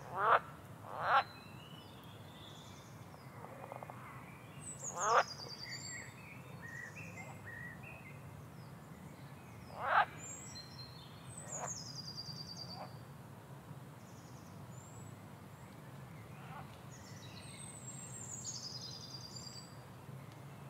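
Wild birds singing and calling: high, falling trilled songs recur now and then, over a low steady hum. Loud, short calls that sweep quickly upward come about a second in, about five seconds in and about ten seconds in, with fainter ones after.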